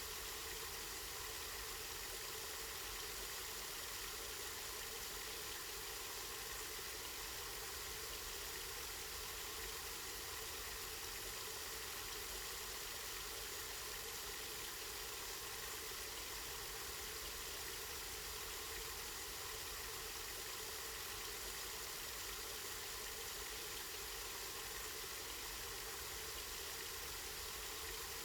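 Water running steadily from a spring, an even, unbroken rushing.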